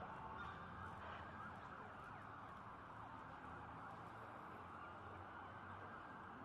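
Several police sirens wailing at once, faint and overlapping, their pitches sliding up and down over a steady wash of street noise.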